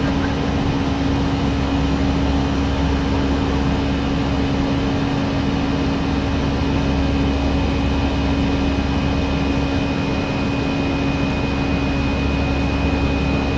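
Steady cockpit noise of an Airbus A319 in flight: a constant rush of airflow and engine noise over a steady hum, with a faint high tone coming in near the end.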